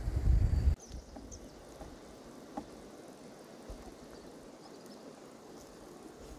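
A loud low rumble cuts off abruptly under a second in. After it comes faint outdoor ambience: a low even hiss of running stream water and insects, with a few small clicks.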